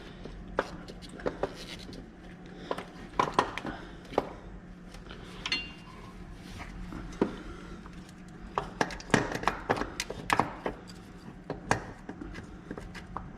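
Hand tools and metal fasteners clinking and knocking at irregular intervals while a replacement starter is fitted by hand, one clink ringing briefly about five seconds in, over a faint steady hum.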